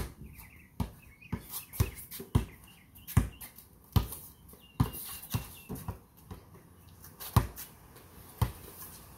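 Basketball being dribbled on a concrete driveway: a run of sharp thuds, roughly two a second, in an uneven rhythm.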